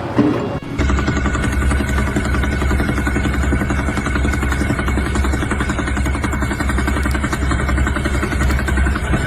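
An engine running steadily with a low rumble and a fast, even pulse, starting abruptly just under a second in.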